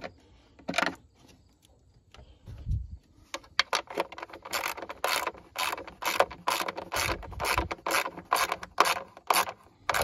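Hand ratchet clicking in quick, even strokes, about three a second, as a nut is run down onto its stud. The clicking starts about three seconds in.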